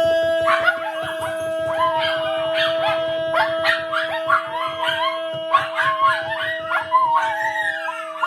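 A dog howling and yipping in short, rising and falling calls over music with a steady held note and a quick beat.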